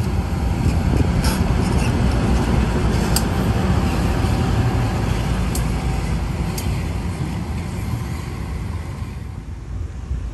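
A vehicle passing: a loud, low rumble that swells in the first second and fades near the end, with a few sharp high clicks or squeaks scattered through it.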